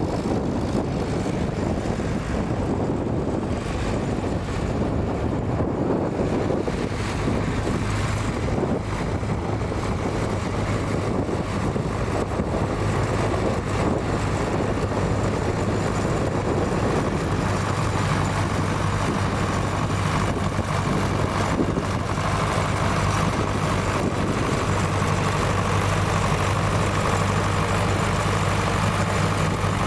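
Tractor engine running steadily, its low note growing clearer a few seconds in and stronger from about halfway, over rumbling wind noise.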